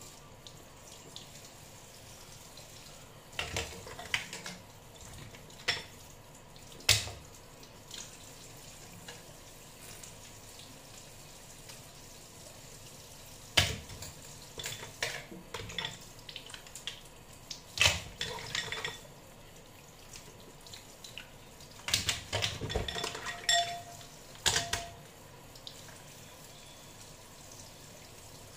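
A thin stream of water running from a kitchen tap into a stainless-steel sink, with scattered sharp clicks and clinks of mussel shells and kitchen scissors being handled as the mussels are cleaned. The clicks come in short clusters and are louder than the running water.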